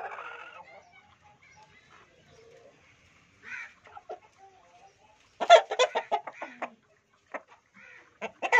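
Aseel rooster giving rapid short clucks in two clusters, a loud one about five seconds in and another near the end.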